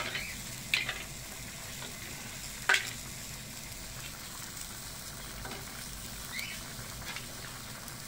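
Steady sizzle of seafood paella cooking in its pan on the gas burner, broken by a few sharp clicks of mussel shells knocking against the metal pan as cooked mussels are picked out and dropped in; the loudest click comes about three seconds in.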